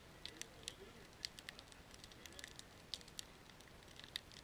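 Split-wood campfire crackling: faint, irregular sharp snaps and pops, about three a second.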